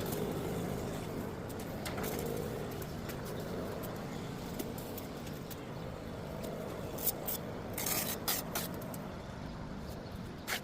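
Steady background rumble and hiss with several short sharp knocks clustered about seven to eight and a half seconds in, and another just before the end.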